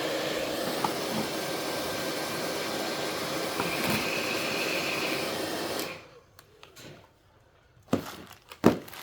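Electric air blower running steadily, drying the treated rifle magazine, then switched off about six seconds in; a few sharp knocks follow as the part is handled.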